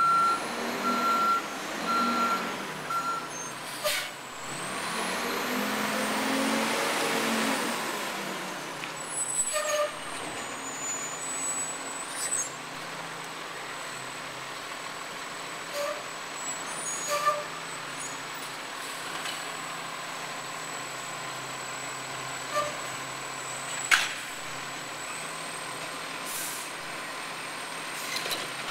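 Garbage truck manoeuvring: its reversing alarm beeps about once a second for the first few seconds, then the engine revs up and back down over a few seconds. After that it runs steadily at a lower level, with scattered clicks and one sharp knock about 24 seconds in.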